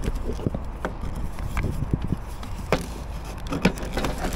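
Scattered clicks and knocks of a blue CEE shore-power plug and its cable being handled at the socket box, over a low steady rumble.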